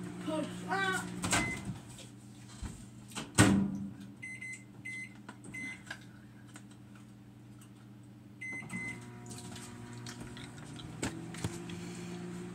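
Microwave oven humming as it runs, then its door clunks open about three seconds in. A short series of keypad beeps follows, and the hum starts again near the end as it is set running once more.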